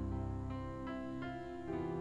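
Yamaha electronic keyboard playing soft piano chords, each one held and then changed every half second or so.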